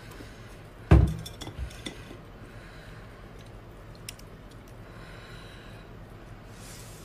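A single knock against a glass bowl about a second in, then a few light clicks and faint handling as the skin is peeled from a geoduck that has been scalded in hot water.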